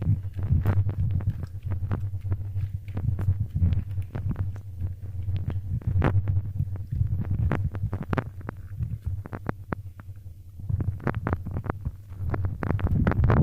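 Slime being squeezed and worked by hand: a dense run of short wet clicks and pops over a low rumble, easing off for a moment about ten seconds in.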